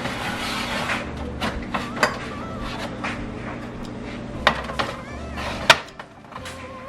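Containers and bins clattering as they are handled and set down in a refrigerator: a string of irregular knocks and clicks over a low steady hum, with the sharpest click about a second before the end.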